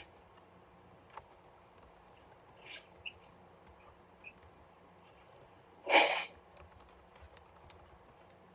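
Quiet room with faint scattered clicks and ticks, and one short hiss of noise about six seconds in.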